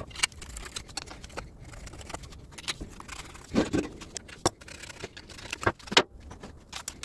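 Metal parts of a Minsk motorcycle gearbox being handled by hand: a string of sharp metallic clicks and knocks, the loudest about three and a half and six seconds in.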